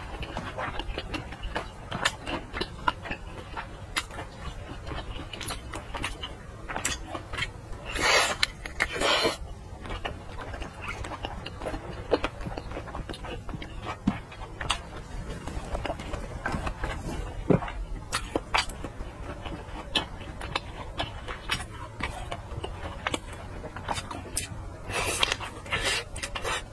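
Close-miked chewing and biting of a sausage: many short wet mouth clicks and smacks. Two louder, longer noisy bursts come about a third of the way in and near the end.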